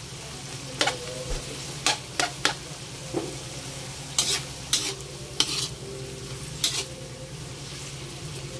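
Yardlong beans and onions sizzling in a wok as a metal spatula stirs them, scraping and knocking sharply against the pan about ten times.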